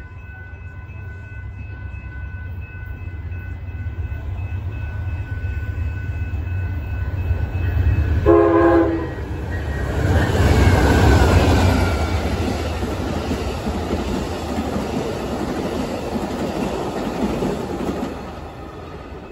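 Amtrak passenger train with a GE Genesis diesel locomotive approaching, its rumble building, then a short horn blast about eight seconds in. The locomotive and bi-level Superliner cars then pass at speed with a loud rush of wheels on the rails, which fades near the end.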